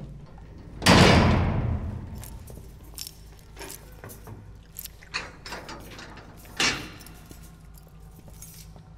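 A loud bang about a second in that rings out over about a second, followed by scattered light clicks and rattles and one sharper knock later on.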